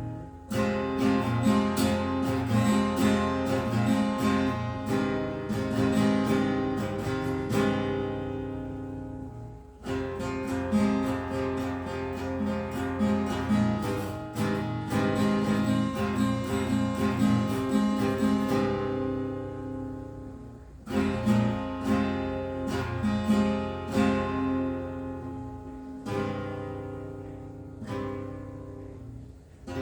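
Acoustic guitar strummed without singing. Its chords ring out and die away in short pauses about nine seconds in, twenty seconds in and near the end, with the strumming picking up again after each.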